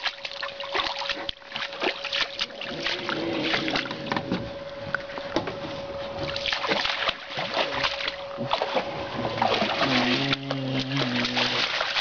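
Water splashing and sloshing in quick irregular strokes. About ten seconds in there is a short low call or voice.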